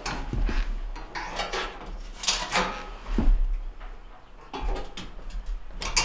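Irregular metal clicks, knocks and scrapes from a gas range being taken apart, a knife blade pushed in to depress its retaining clips.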